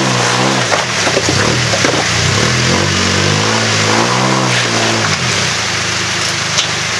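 Engine of a lifted Toyota Hilux Surf revving up and easing back down twice as the truck crawls over rocks. A few knocks come about a second in.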